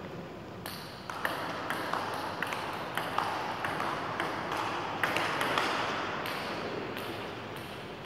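Table tennis rally: the ball clicking off the paddles and the table in a quick back-and-forth series, two to three clicks a second, starting about a second in and stopping shortly before the end.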